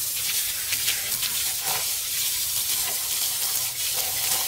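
Jet of water from a garden hose spraying onto a motorbike's front wheel and the wet concrete around it, a steady spray with small irregular splashes.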